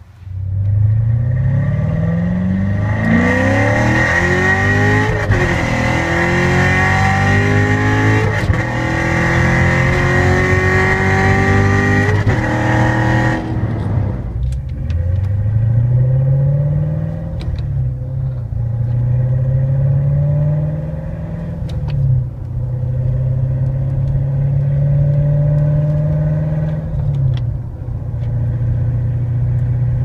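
2014 C7 Corvette's 6.2-litre LT1 V8, heard from inside the cabin, accelerating through the gears of its manual gearbox. The pitch climbs and drops at each upshift, with about three hard pulls in the first half and then several lighter ones.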